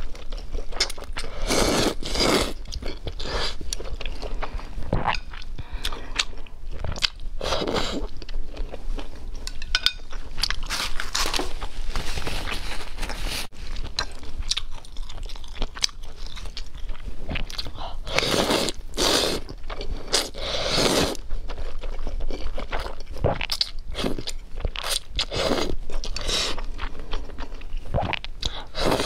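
Eating sounds: instant noodles slurped in from chopsticks and chewed, in repeated bursts of a second or two.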